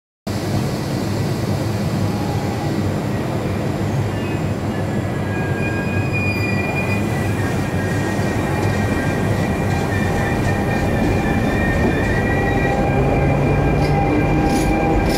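Train running on the rails, its wheels squealing in several thin, high tones that come in about six seconds in over a steady rumble that grows slowly louder.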